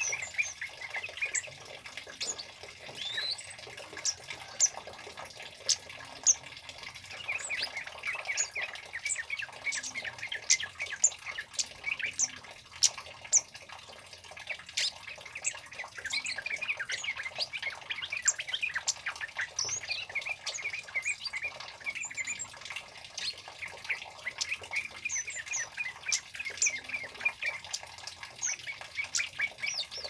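Scarlet-headed flowerpecker calling: a fast, busy run of short, sharp, high-pitched chips and twitters that keeps going with brief lulls.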